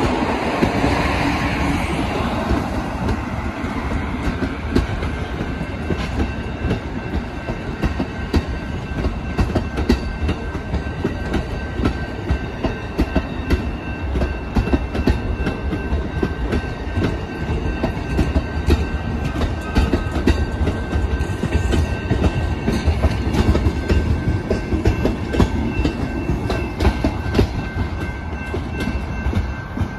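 Amtrak passenger train of Amfleet coaches rolling past close by: a steady low rumble of wheels on rail, with dense clicks and clunks of wheels over rail joints and a faint steady high whine.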